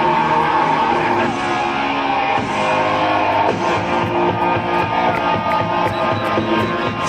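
Rock music with guitar playing loudly over the PA system, with a steady beat.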